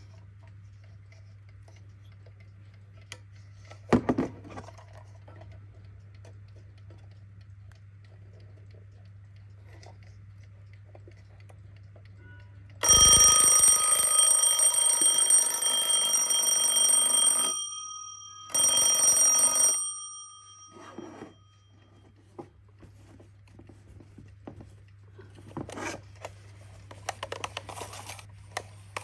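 Kienzle twin-bell alarm clock ringing: the hammer rattles rapidly against the two bells for about four and a half seconds, stops, then rings again briefly for about a second, with the bells ringing on for a moment after. A single knock comes well before the ringing, and light handling clatter near the end.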